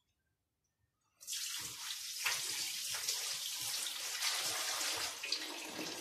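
Silence for about the first second, then a water tap is turned on and water runs steadily.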